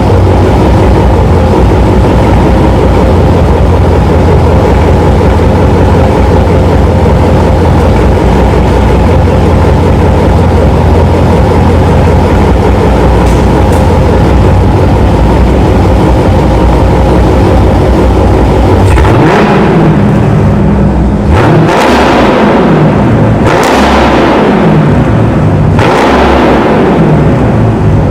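Dodge Charger Scat Pack's 6.4-litre 392 HEMI V8 with a muffler delete, idling in gear with a deep, choppy beat. About two-thirds of the way in it is revved four times, each rev climbing sharply and dropping back to idle, held under about 4,000 rpm by the factory rev limiter.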